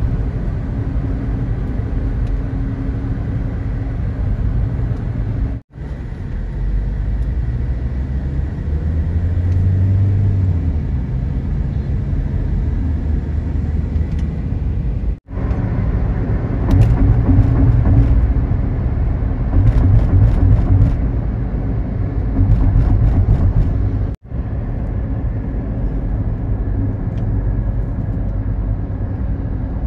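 Car driving on a highway, heard from inside: a steady low rumble of tyre and engine noise, broken by three very short gaps.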